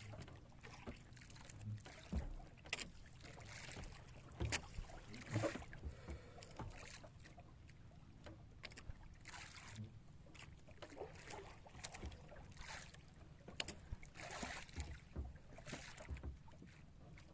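Irregular knocks and rustles aboard a small wooden fishing boat as a hand line and freshly caught fish are handled, over a faint steady low rumble.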